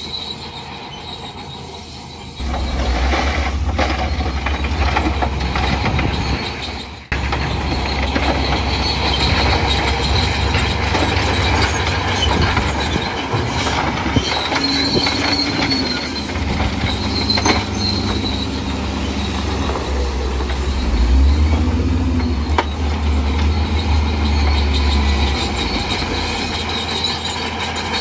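Bulldozer working, its diesel engine running under load with the steel crawler tracks squealing and clanking. The deep engine drone comes in a couple of seconds in and breaks off briefly about seven seconds in before picking up again.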